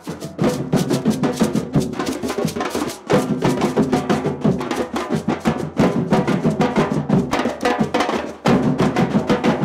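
A batucada drum group playing a fast, dense rhythm, with large drums struck by hand and smaller drums beaten with mallets. The beat briefly drops back about three seconds in and again about eight seconds in.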